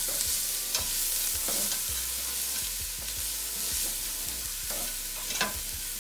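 Chicken and shredded broccoli, carrot and cabbage sizzling in oil in a hot pan, with a utensil scraping and clicking against the pan every second or so as the mixture is stirred.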